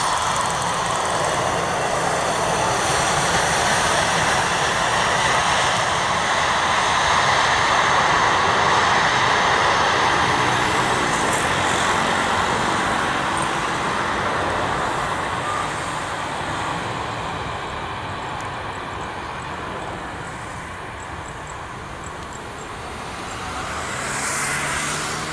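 Airbus A320 jet airliner landing: its jet engines run loudly just after touchdown, swelling over several seconds as it slows on the runway and then fading away. Near the end another jet airliner's engine sound swells briefly.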